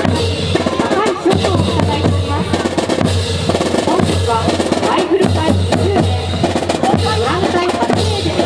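Marching drums playing a cadence, with bass drum and snare strikes.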